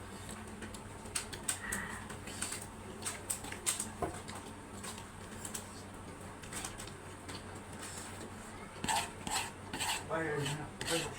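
Utensils clinking and scraping against a dish during noodle eating, in many short, irregular clicks that come thicker near the end.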